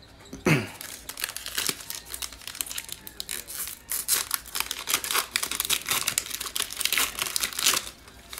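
Foil trading-card pack being torn open, its wrapper crinkling as the cards are pulled out, in a dense run of crackles.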